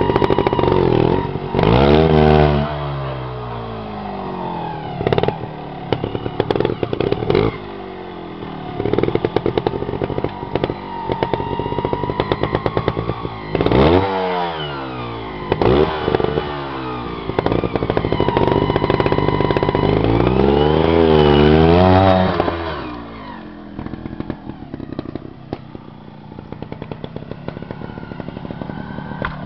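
Beta trials motorcycle engine running and being blipped, revving up and down in several sharp bursts with lower running between, and clattering knocks scattered through. It settles to a quieter, steady running over the last several seconds.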